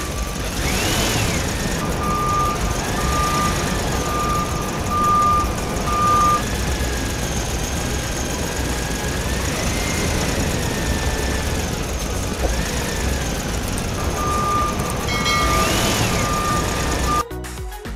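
Model dump truck's simulated diesel engine sound running, its revs rising and falling several times, with a reversing alarm giving a run of steady evenly spaced beeps early on and another near the end.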